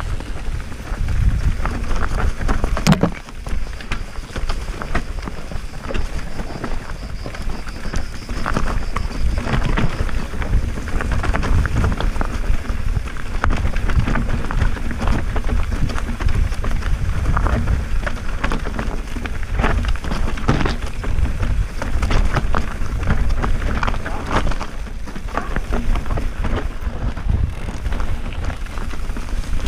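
Mountain bike ridden fast down a loose, rocky trail: wind rumbling on the camera microphone, with tyres crunching over stones and the bike rattling continually over bumps, and one sharp knock about three seconds in.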